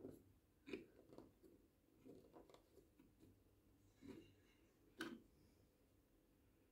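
Faint, scattered clicks and taps of a plastic minifigure and bricks being handled and set down, the loudest about five seconds in.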